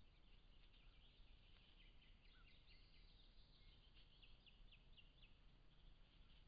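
Near silence over a faint low hiss, with distant small birds singing: thin chirps and a quick series of short falling notes about halfway through.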